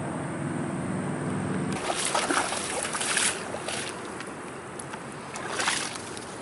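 A steady low hum for about the first two seconds, then a horse wading in shallow floodwater, splashing with its steps several times.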